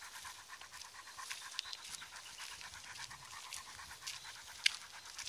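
Newfoundland dog panting in a quick, even rhythm with its mouth open and tongue out, with a few sharp ticks over it, the loudest near the end.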